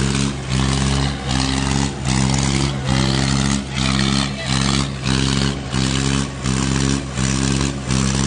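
Diesel engines of a Swaraj 855 and a Mahindra Arjun tractor running flat out under heavy load while chained together pulling against each other. The sound holds a steady pitch and swells and dips regularly, a little more than once a second.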